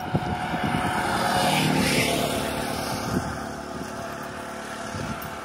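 A three-wheeled CNG auto-rickshaw's engine passing close by. It grows louder to a peak about two seconds in, then fades as it drives away.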